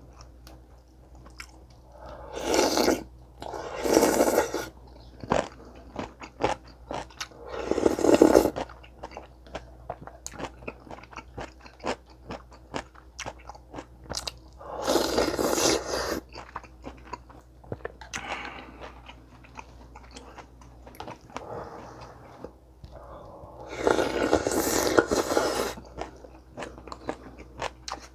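Close-miked eating sounds: chewing with crunchy bites and small wet clicks, and about five louder crunching bursts, each a second or two long.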